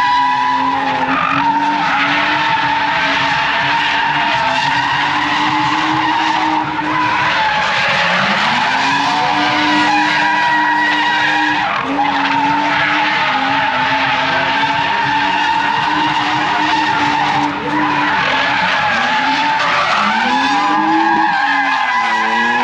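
Drift car sliding with its engine held at high revs, the pitch dipping and climbing back a few times, over continuous tyre screech.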